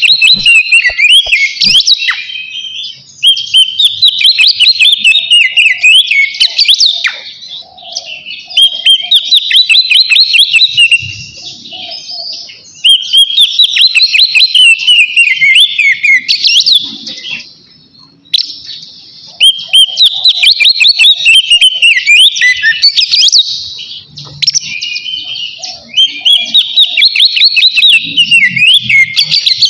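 Oriental magpie-robin singing a loud, full song in phrases a few seconds long, made of rapid whistles, trills and chattering notes, with short pauses between phrases. It is a male's song calling out a rival.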